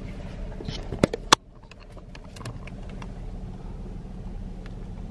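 Steady low hum of a car idling, heard inside the cabin. Two sharp clicks come a little after a second in, then lighter clicks and knocks as a camera is handled.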